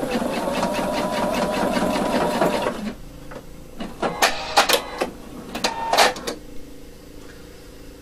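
Electronic sewing machine stitching steadily, a quick even run of needle strokes over a motor hum, that stops abruptly about three seconds in. Then a few sharp clicks and rustles as the sewn cuff is pulled out from under the presser foot.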